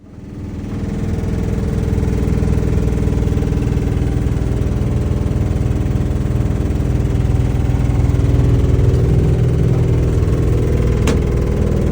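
Lennox furnace running with a loud, steady mechanical drone made of several low steady tones, the abnormal noise it makes when running in heat and cool mode. A single sharp click sounds near the end.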